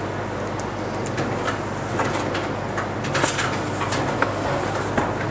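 KZ-900 strapping machine running a strapping cycle: a steady motor hum with a run of sharp clacks and knocks as it pulls the plastic strap tight around a carton, seals it and cuts it off.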